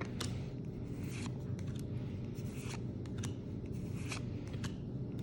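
Pokémon trading cards handled and flipped one after another: light swishes and small ticks of card sliding against card, over a steady low hum.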